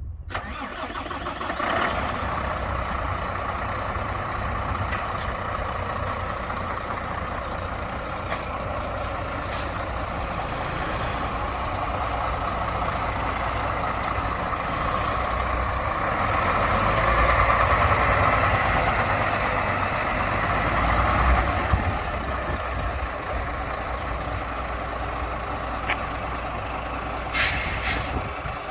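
Diesel engine of a Renault construction truck running, growing louder for several seconds partway through, with a few short sharp hisses of air.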